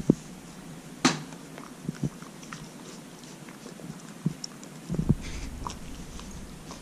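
A goldendoodle chewing and biting a soft, chewy homemade apple dog treat, with irregular sharp clicks and smacks of its jaws; the loudest comes about a second in, with a cluster of them around five seconds.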